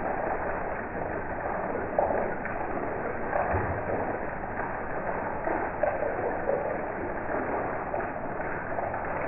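Heavy rain falling steadily, with water streaming off the roof edge, and a few short, louder splashes scattered through it.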